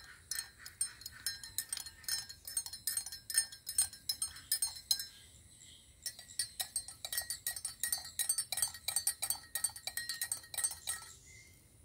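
Metal teaspoon stirring sugar into black tea in a ceramic mug, clinking quickly against the inside of the cup. It stops for about a second halfway through, then a second mug is stirred the same way.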